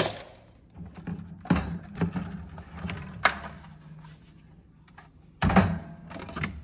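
Plastic dishwasher cutlery basket knocking and clicking against the wire dish rack as it is lifted out and set back in: a few separate knocks, with a louder clatter near the end as it goes back into place.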